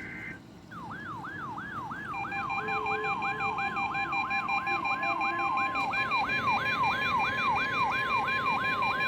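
NOAA Weather Radio alert: the last burst of the digital alert header cuts off at the start. A weather-radio receiver's siren-style alarm then sweeps up and down about three times a second. About two seconds in, the broadcast's steady warning alarm tone and a rapid beeping join it, signalling a test of the alert system.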